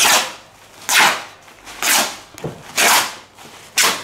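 Polyester fabric swishing in five quick pulls, about one a second, as a long strip is drawn off a roll.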